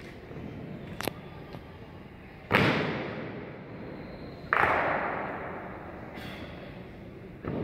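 Sharp drill impacts from a ceremonial honour guard. Two loud strikes about two seconds apart each echo and die away slowly, with lighter clicks between them and another strike near the end.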